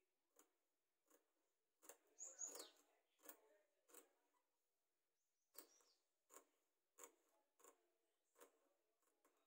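Fabric scissors cutting cotton blouse fabric: faint, irregular snips roughly once a second, with a short high falling chirp about two seconds in.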